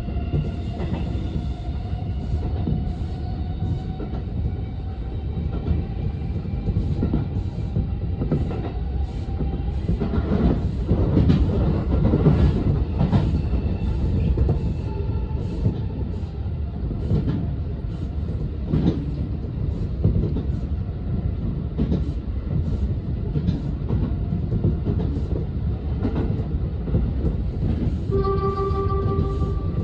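Electric commuter train on the Tobu Skytree Line running along the track, with a steady low rumble and repeated clicks of the wheels over rail joints. Near the end the train's horn sounds once, a short blast of about a second and a half, which the driver sounds often in the snow.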